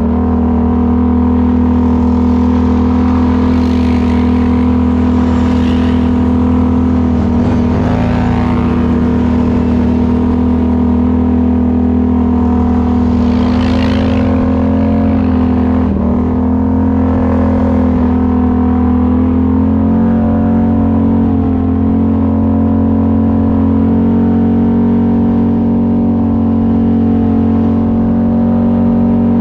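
ATV engine running at a steady throttle, its pitch dipping briefly a couple of times, with short rising-and-falling revs now and then.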